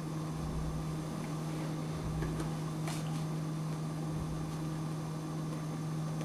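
Steady low electrical hum over room noise, with a few faint low thuds and a faint click about three seconds in.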